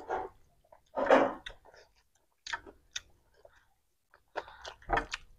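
Chewing and wet mouth sounds from eating rice and chicken by hand, heard as a few short separate bursts with quiet gaps between them.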